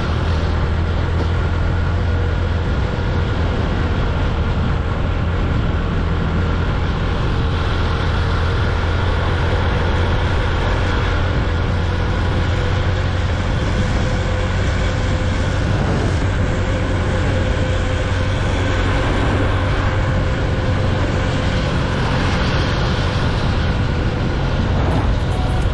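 Motorcycle engine running steadily at cruising speed, heard from the rider's seat, with a constant low hum under steady wind and road noise.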